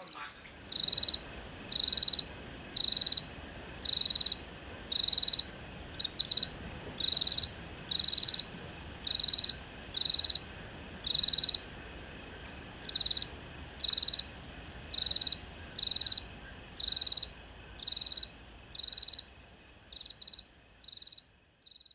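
A cricket chirping in short, even trills about once a second, over a faint steady high hum; the chirps grow fainter near the end.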